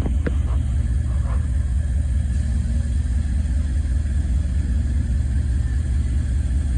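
Steady low rumble of a diesel train engine running, with a few faint clicks in the first second or so.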